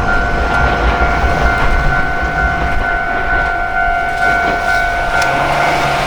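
Japanese level-crossing alarm ringing its steady electronic 'kan-kan' note, over the low rumble of an Iyotetsu electric train.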